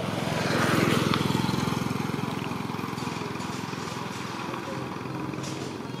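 Small step-through motorbike engine passing by, loudest about a second in and then fading away.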